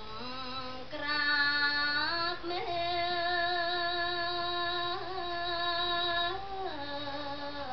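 A woman singing smot, Khmer Buddhist chanted verse, solo and unaccompanied into a microphone. She holds long notes that step up and down between pitches, with small wavering turns, one note held for about four seconds in the middle.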